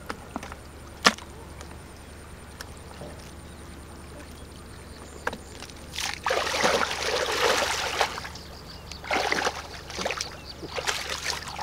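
Shallow muddy water sloshing and splashing in three bursts over the second half, the longest first, as a person wades and works a plastic basket through it. A single sharp click about a second in.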